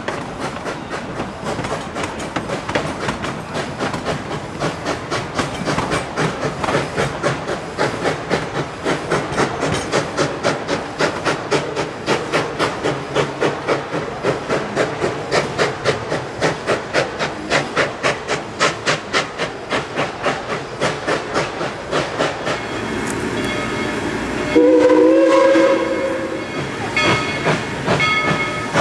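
Narrow-gauge steam locomotive No. 190 working along, its exhaust chuffing in a steady beat. Steam hisses, then one loud whistle blast of about a second and a half comes some 25 s in, followed by a bell ringing near the end.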